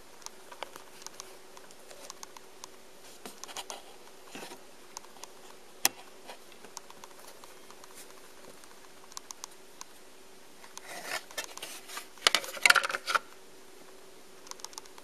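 Technics SL-5 linear-tracking turntable running, a faint steady hum under light scattered mechanical clicks. A burst of louder clicking and scraping comes about eleven to thirteen seconds in.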